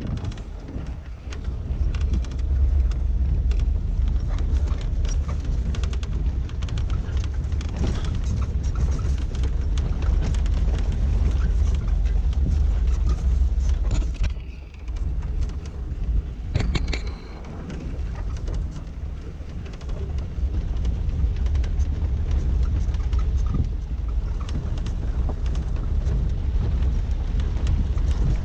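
Suzuki SJ413 Samurai driving off-road on a rough gravel track: a deep, steady rumble with many small knocks and rattles, easing off briefly about halfway through.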